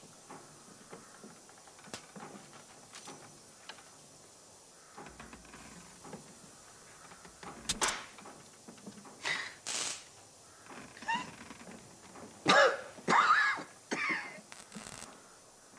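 An injured man trapped under wreckage coughing and groaning in pain, a string of short strained gasps and groans in the second half. Before that only faint, scattered ticks and creaks.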